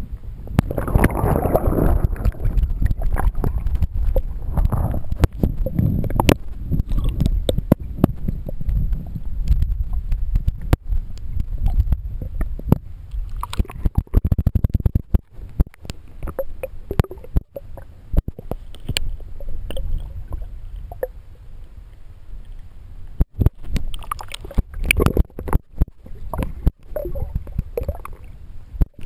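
Underwater sound heard through a submerged action camera's microphone: water rumbling and gurgling around the camera as the swimmer moves, with many sharp clicks. The rumble is strongest a second or two in.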